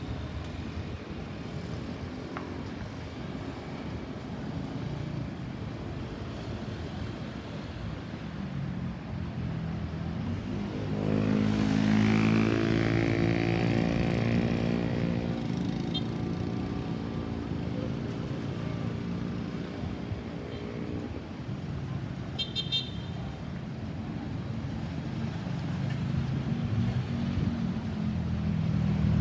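Road traffic with vehicle engines running. About eleven seconds in, a nearby vehicle's engine becomes the loudest sound and holds a steady pitch for roughly ten seconds before fading. A short high beep follows a little after that.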